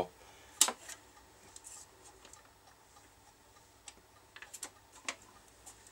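A few sharp, scattered clicks from hands handling a BSR record deck and its freshly refitted platter, over a faint steady low hum.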